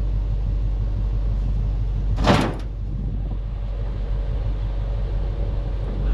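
A machine engine idling with a steady low hum while the truck's motor is lifted out, with one loud, sharp metallic knock about two seconds in.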